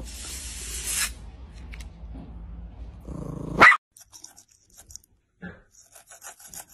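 Air hissing out of a balloon for about a second, then a small dog's loud rising bark that cuts off abruptly. After that, short, soft repeated scrubbing strokes of a toothbrush on a dog's teeth.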